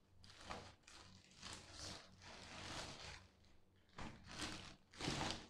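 Plastic packaging bag rustling and crinkling as it is handled and pulled open, in several irregular bursts, the loudest near the end.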